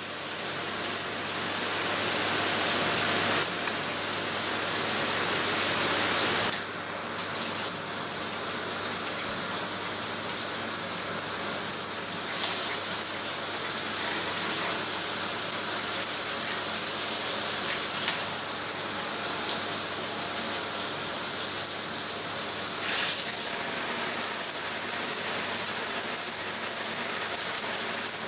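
Water spraying from a six-mode fixed shower head: a steady hiss of spray. Its character shifts several times, with a brief drop about six and a half seconds in.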